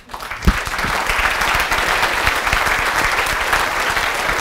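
Audience applauding at the end of a talk. It builds up over the first second and then holds steady, with a single low thump about half a second in, and it cuts off suddenly at the end.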